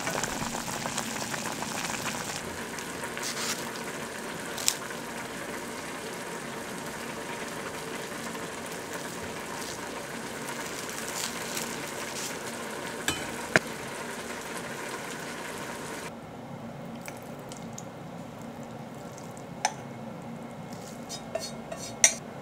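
Pot of instant ramen simmering on a gas hob, a steady bubbling hiss, with chopsticks stirring the noodles. About two-thirds of the way through the simmering stops and quieter kitchen handling follows, with a few sharp clicks and knocks, the loudest near the end.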